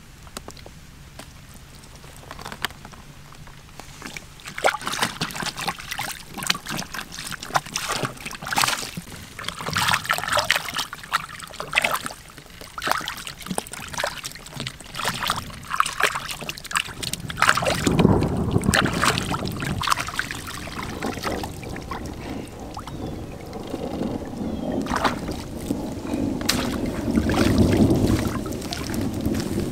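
Water splashing and sloshing in irregular bursts as raw pig lungs are washed by hand in lake water. About halfway through, a louder low rumbling noise takes over.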